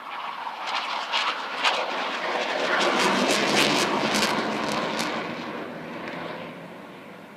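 RAF Eurofighter Typhoon's twin jet engines passing: a jet roar that builds to a peak midway and fades away, with sharp crackles through the loudest part.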